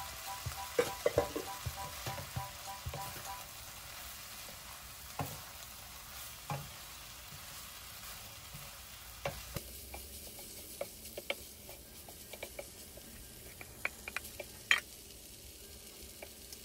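Cooked rice with onion and bell pepper sizzling in a non-stick frying pan while a wooden spoon stirs it, with scattered sharp taps and scrapes of the spoon against the pan.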